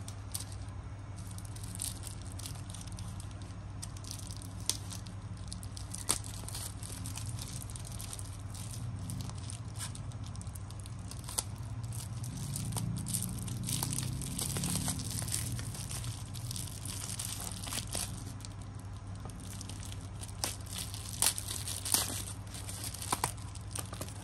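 Plastic bubble-wrap packaging crinkling and tearing as it is cut open with a serrated folding knife and pulled apart, with scattered sharp clicks, over a steady low hum.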